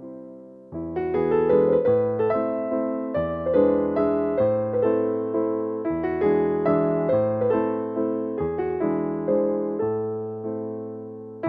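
Background piano music: a gentle melody of struck notes that ring and fade, over slower bass notes. It resumes about a second in after a chord dies away.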